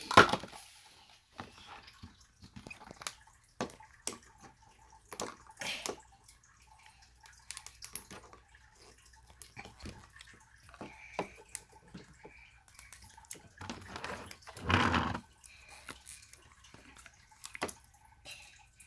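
Scattered small clicks and taps of a plastic toy and its packaging being handled, with a louder rustle about fifteen seconds in.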